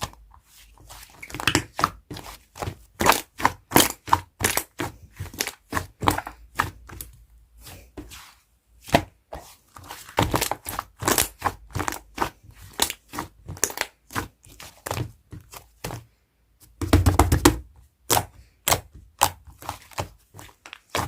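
Yellow slime being squished and pressed by hand, giving a rapid, irregular run of crisp clicks and crackling pops, with a denser, louder squelching burst about three quarters of the way through.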